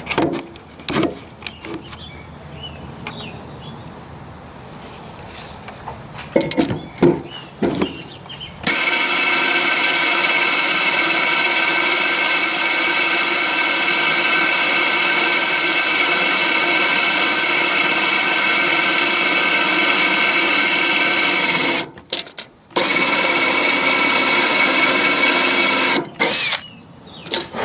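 Electric drill running at a steady full speed with a high whine for about thirteen seconds. It stops briefly and runs again for about three seconds. Scattered handling knocks and clicks come before it and after it.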